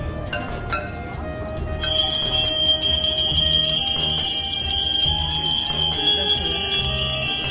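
Bells ringing: a few separate ringing strikes, then from about two seconds in a bell rung continuously, over a low rhythmic beat.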